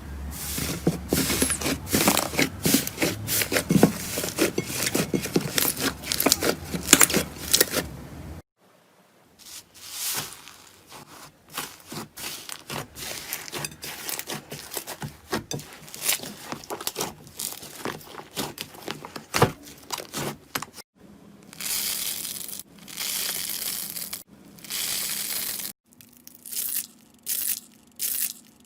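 Slime being pressed and stretched by hand, with dense crackling and popping for about the first eight seconds, then sparser pops and clicks after a sudden cut.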